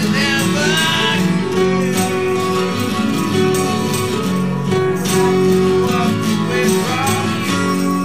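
Music led by plucked guitar, with sustained chords and gliding higher notes, at a steady level.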